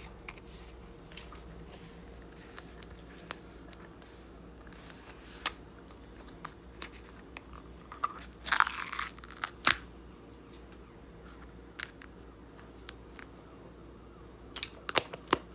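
Plastic spice jar being opened by hand: scattered clicks and knocks from the cap and jar, and about eight and a half seconds in a short rasping tear as the paper seal is peeled off the jar's mouth.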